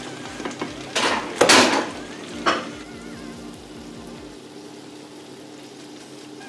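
Pancake batter sizzling in a hot pan, with a few short scrapes or knocks of a utensil against the pan between about one and two and a half seconds in.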